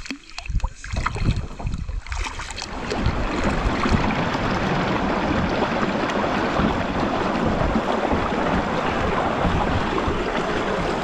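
A few canoe paddle strokes splash in the water. Then, from about two seconds in, fast water from a small rapid rushes steadily and loudly past the canoe's bow.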